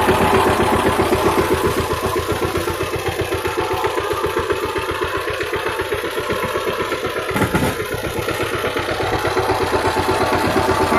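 Power tiller's single-cylinder diesel engine running steadily in rapid, even firing pulses as its rotary tines churn wet field soil, with a brief jolt in the sound about seven and a half seconds in.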